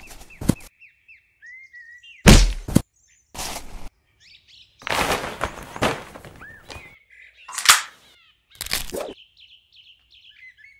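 Birds chirping steadily, broken by several loud sudden noises: a heavy thump about two seconds in, a longer noisy burst around five seconds, and sharp hits near the end.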